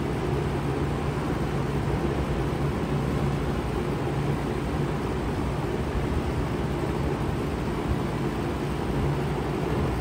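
A 2013 Bard 3.5-ton wall-hung heat pump running steadily in cooling mode. The outdoor fan makes an even rushing noise over a low, steady hum.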